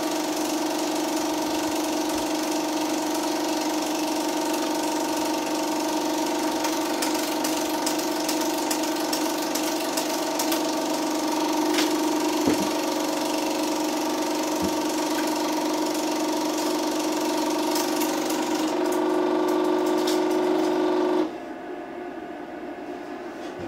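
Home-movie film projector running: a steady motor hum with the fine mechanical clatter of the film transport. Near the end the sound drops suddenly to a quieter hum as the picture goes dark.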